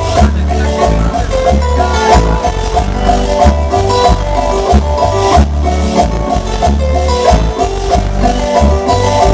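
A cumbia track played loud over a sonidero sound system, with a heavy pulsing bass line, short repeated melodic keyboard notes and steady percussion.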